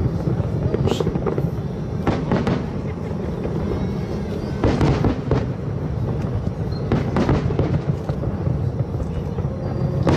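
Fireworks display: sharp bangs and crackles of bursting shells over a continuous deep rumble, with the biggest cluster of bangs about halfway through.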